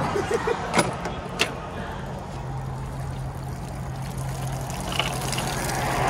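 Water from a makeshift post-surf shower pouring and splashing, with two sharp clicks in the first second and a half and a steady low hum that comes in about two seconds in.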